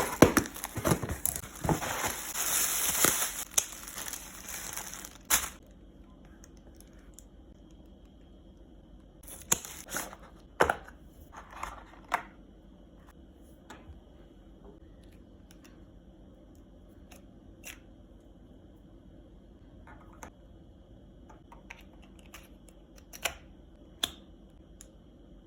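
Parcel packaging being torn open and crinkled for about five seconds. After that, quiet handling with scattered light clicks and taps.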